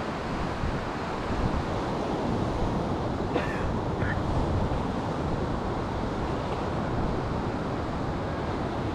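Wind buffeting the microphone over steady ocean surf. Two faint short high chirps a little over three seconds in.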